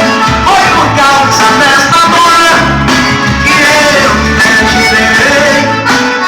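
Loud recorded music with a singer, guitar and heavy pulsing bass, played on a car sound system.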